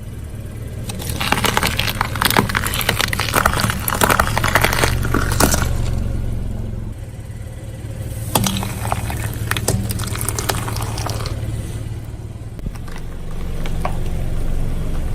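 A car tyre rolling slowly over brittle objects and crushing them, with a steady low engine hum underneath. The crunching and cracking comes in two spells: one of about four seconds near the start, and a shorter one past the middle.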